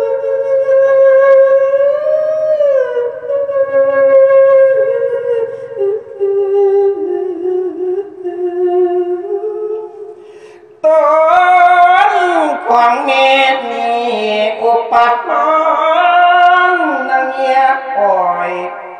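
A monk's voice singing a Thai verse into a microphone, with long drawn-out notes that slide slowly in pitch. It fades away about ten seconds in, then comes back suddenly and louder about a second later, with quicker turns of melody.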